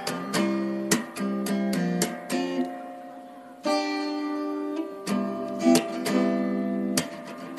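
Background music: an acoustic guitar plucking and strumming chords.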